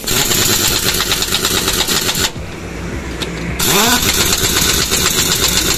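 Pneumatic impact wrench hammering on the wheel nuts of a truck's front wheel during a tyre change: two runs of rapid rattling, with a break of about a second in the middle.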